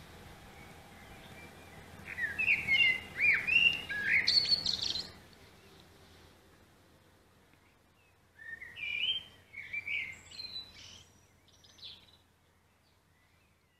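Small birds chirping: a run of quick rising and falling calls about two seconds in, and a second run about eight seconds in, over a faint background hiss that fades out after the first run.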